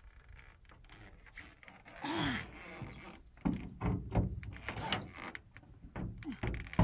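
Scattered knocks and clicks of work on the shade roof panels, with a brief scrape about two seconds in.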